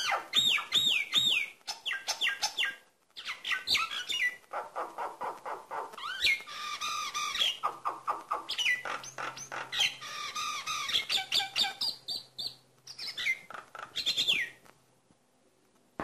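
Common myna singing nonstop in a rapid, varied medley of whistles, clicks and harsh chattering notes, opening with a quick run of falling whistles at about four a second. It falls quiet about a second before the end.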